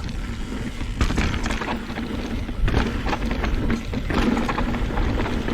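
Trek Slash mountain bike rolling down a dirt and rock singletrack: tyres crunching over the trail with a steady run of small clicks and knocks from the bike, over a constant rush of ride noise.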